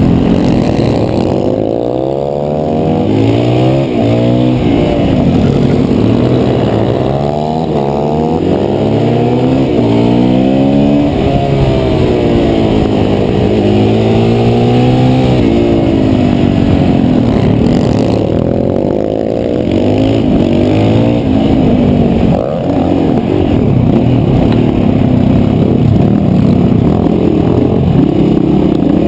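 KTM 525 single-cylinder four-stroke supermoto engine at race pace, its pitch climbing through each gear and dropping at the shifts and as it slows for corners, over and over.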